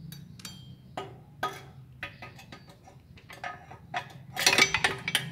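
A wrench working the 12 mm bolts of a motorcycle's exhaust header: scattered metallic clicks, then a quick run of rapid clicks about four and a half seconds in.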